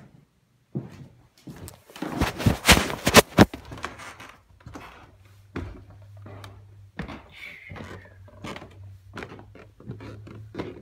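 Footsteps on bare wooden stairs going down into a basement: a burst of loud knocks and thumps about two seconds in, then irregular single steps, with a low steady hum underneath in the second half.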